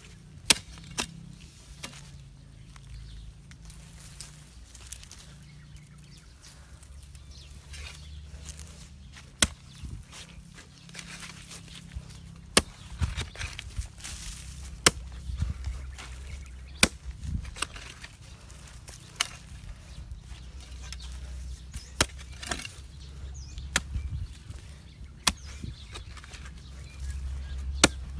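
Metal hoe blade chopping into hard, stony soil: about a dozen sharp strikes at irregular intervals, with scraping and loose soil and stones between them.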